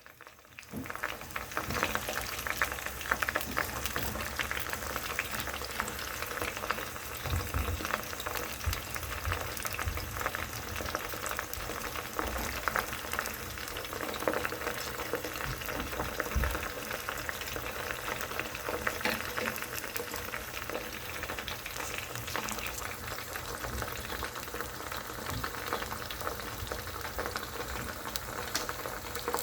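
Broccoli deep-frying in oil in a small metal Sierra cup: a steady, dense crackle and sizzle of many fine pops, with a few low bumps.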